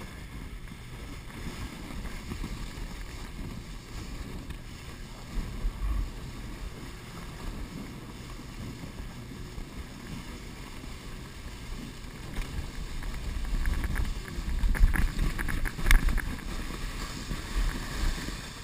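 Canoe hull sliding and scraping over packed snow, with wind rumbling on the camera microphone. Louder bumps and knocks come in the last few seconds as the ride gets rougher.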